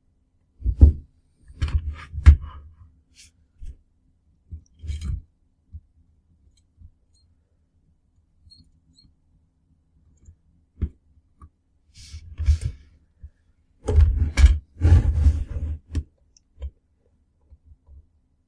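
Irregular clicks, taps and knocks of hands handling small parts and tools, in several short flurries with a quiet gap in the middle.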